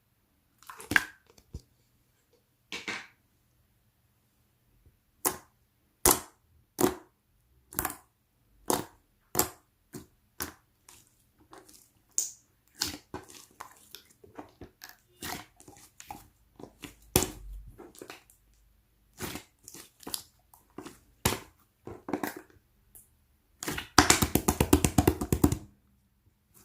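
Semi-translucent slime mixed with plastic pearl beads being pressed and poked by hand, giving sharp crackling pops about once a second. Near the end comes a quick run of rapid clicks as the slime is worked fast.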